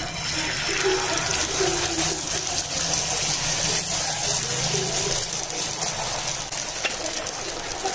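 Beaten egg and onion mixture poured onto a hot ghee-greased iron tawa, sizzling steadily as the omelette sets.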